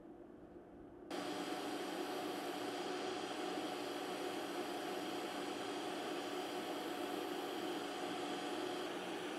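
TIG welding arc, a steady hiss and buzz that comes in suddenly about a second in and holds evenly while a bead is laid on the fabricated core-support tie bar.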